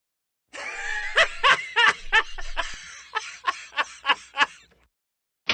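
A cartoon character laughing: a run of about a dozen short "ha" bursts, roughly three a second, trailing off toward the end.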